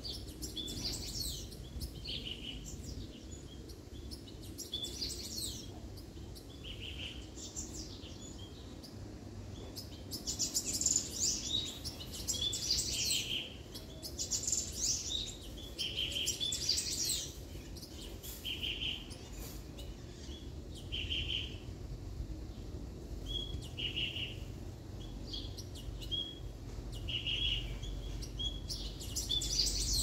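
Songbirds calling and singing: a short, clear note repeats every two to three seconds, and bursts of high, quick twittering song come in between.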